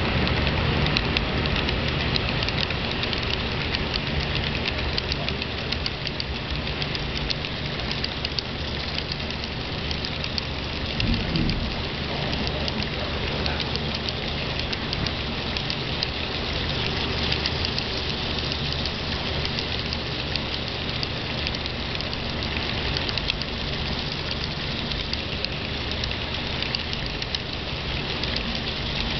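HO-scale model freight cars rolling past on the track: a steady rattling clatter of small wheels on rail, made of dense fine clicks, over a low steady hum.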